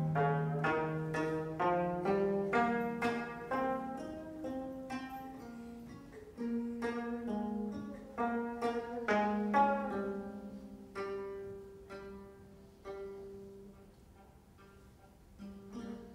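25-string gayageum plucked in a flowing run of notes, about two or three a second at first, then sparser and softer in the second half. Low cello notes are held underneath.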